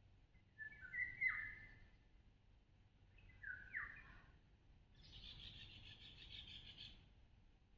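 Songbird calls, faint: two short chirped phrases with quick downward slides, about a second in and about three and a half seconds in, then a buzzy trill lasting about two seconds.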